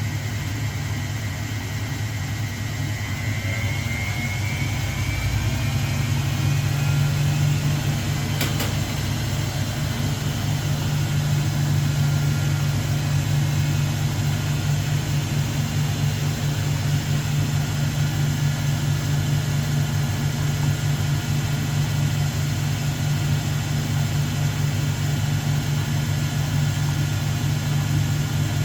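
Washing machine running with a steady, loud low hum. A motor whine rises in pitch and the level builds over the first several seconds as the drum speeds up. There is a single sharp click about eight seconds in.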